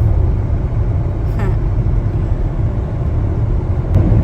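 Steady road and engine noise inside a moving car: a constant low rumble.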